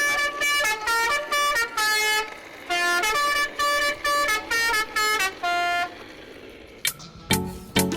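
A tune played in horn-like notes, a quick run of short notes stepping up and down in pitch like a musical vehicle horn, stopping about six seconds in. Near the end, music with sharp clicks and low notes starts.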